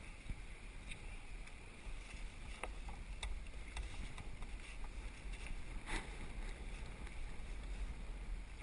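Sea kayak being paddled through choppy water: water splashing and lapping at the hull and paddle blades, with a few sharp splashes, the loudest about six seconds in. Steady wind rumble on the microphone runs underneath.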